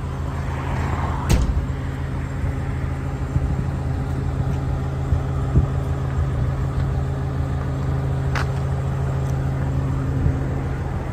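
Komatsu PC600LC-8 excavator's six-cylinder diesel engine idling steadily, with two sharp clicks, the first about a second in and the second near the end.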